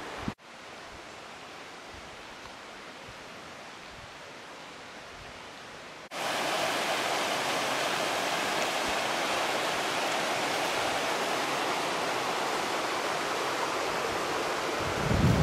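Steady rushing of a rocky mountain stream, soft at first and then much louder after a sudden cut about six seconds in. A brief low thump near the end.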